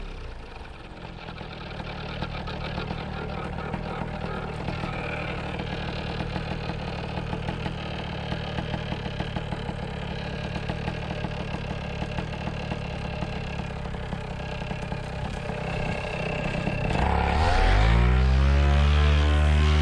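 Paramotor engine dropping from high revs to idle, idling steadily, then revving up again near the end.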